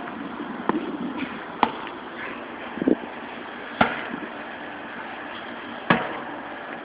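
Heavy workout equipment striking hard: about five sharp impacts at uneven intervals, a second or two apart.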